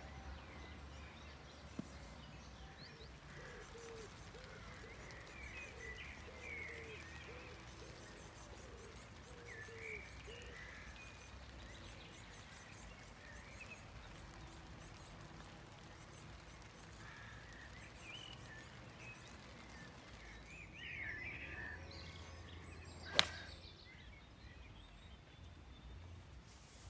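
Quiet outdoor ambience with birds chirping on and off. A single sharp click about 23 seconds in stands out.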